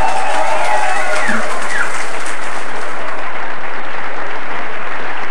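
Crowd applauding loudly, with voices calling out over the clapping in the first second or two.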